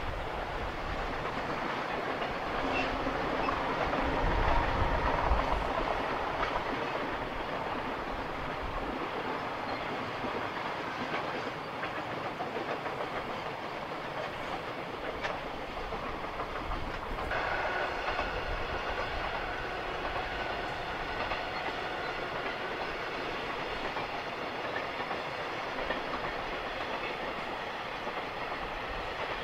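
Long freight train of container wagons rolling steadily along the rails through a wide curve. A faint, thin, high ringing tone joins about halfway through.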